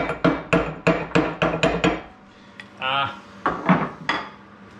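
Hammer blows on the seized parts of a rusted cast-iron arbor press, a quick even run of about four strikes a second with a metallic ring, stopping about two seconds in.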